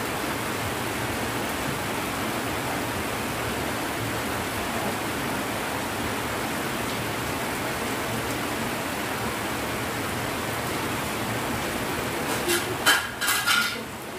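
Heavy rain falling steadily, an even hiss of water. Near the end, a short cluster of louder close-up knocks and rustles rises over it.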